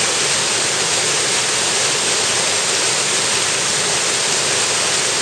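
Mountain stream rushing steadily over boulders through whitewater rapids.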